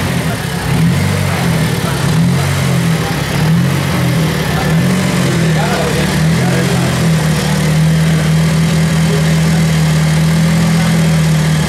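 Alfa Romeo Giulietta TCR race car's turbocharged four-cylinder engine running. Its pitch wavers up and down with light throttle blips for the first several seconds, then settles to a steady idle.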